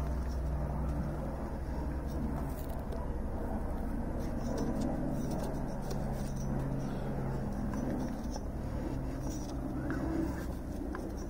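Freshly rebuilt Stihl 034 Super chainsaw engine with a new piston and cylinder being turned over by hand: the piston makes a soft, even rubbing in the bore, with a few faint clicks.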